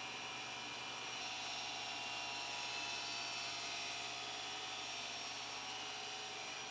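A woodworking power tool running steadily with an even, high-pitched whir.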